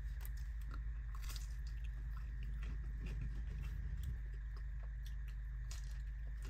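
Crunchy biting and chewing of a cucumber-topped bagel, a run of short crisp clicks, over a steady low hum.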